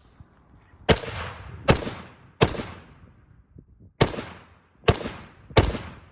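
Six rifle shots in two strings of three, about three quarters of a second apart, with a pause of about a second and a half between the strings. Each shot is followed by a short fading echo.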